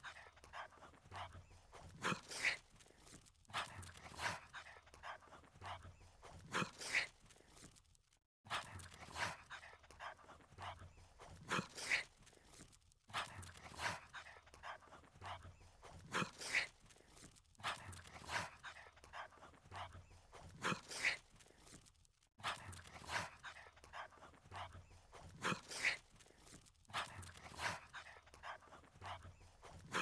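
A dog sniffing the ground: quick runs of short, breathy sniffs, broken by brief pauses.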